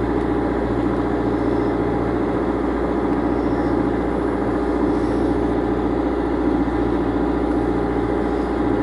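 Boat engine running at a steady, even pitch, a constant low drone with no change in speed.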